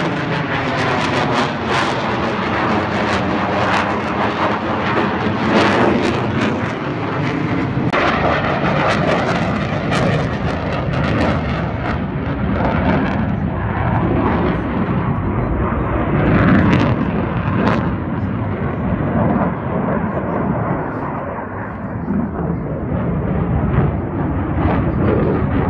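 Aermacchi MB-339 jets of the Frecce Tricolori flying overhead: a loud, continuous jet roar with a sweeping, falling tone during the first several seconds as they pass. After that the sound grows duller, with crackles running through it.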